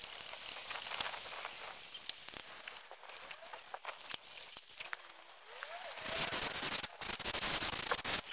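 A hand wiping liquid finish onto a small wooden block with a rag: a soft scuffing rub with scattered light clicks. About six seconds in, a louder, steady rushing noise takes over.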